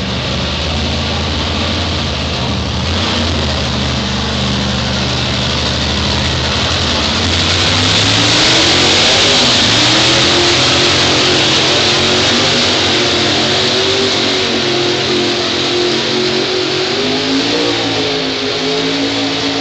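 Modified pickup pulling truck's engine under full throttle as it drags a weight-transfer sled. It runs at steady revs for the first few seconds, then climbs in pitch and grows louder. A rushing hiss on top is loudest about halfway through.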